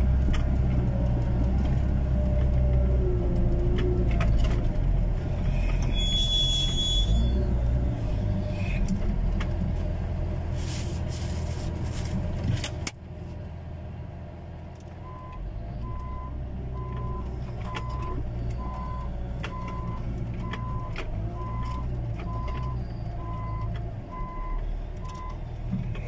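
Front-end loader's diesel engine working hard, heard from inside the cab, with clanks and a short squeal about six seconds in. Halfway through the engine note drops, and then the reversing alarm beeps steadily, about three beeps every two seconds, as the machine backs up.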